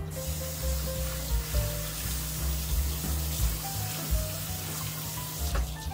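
Kitchen tap running, its stream falling onto pinto beans in a small colander to rinse them; the water cuts off near the end.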